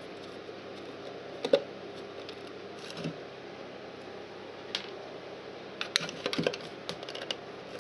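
Small sharp clicks and taps from a screwdriver and a plastic siren housing being handled while the back-plate screws are taken out. The clicks are scattered singly at first, then come as a quick cluster near the end, over a faint steady hum.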